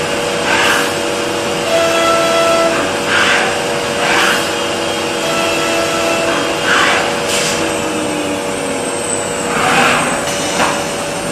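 Rover 24 CNC boring machine running as it drills holes in a wooden kitchen panel: a steady whine and extraction hiss, with short noisy bursts every second or two as the drilling head works.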